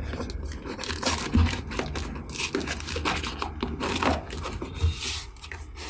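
A pen point scraping and jabbing at the packing tape and cardboard of a shipping box: a fast, irregular run of scratches, taps and crinkles, with two short hissing scrapes midway and near the end.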